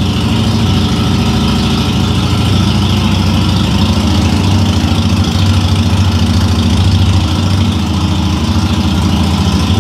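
Harley-Davidson 883 air-cooled V-twin engine idling steadily and loudly.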